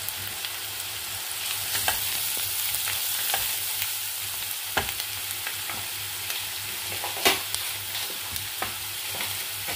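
Chopped onions sizzling in ghee and mustard oil in a nonstick pan as a silicone spatula stirs them, with scattered scrapes and a few sharper knocks of the spatula against the pan, the loudest about seven seconds in.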